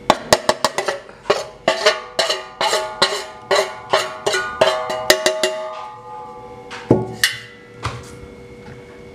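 Stainless steel kitchenware knocking and clinking together, about four sharp ringing knocks a second for some six seconds, then a few spaced knocks near the end: a steel bowl and spoon being tapped against steel to shake out powdered sugar.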